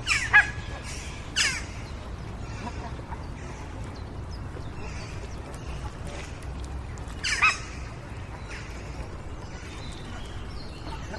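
A crow cawing: three loud, harsh calls, two in the first second and a half and one about seven seconds in. Between them, children's voices at a distance and birdsong over a steady low hum.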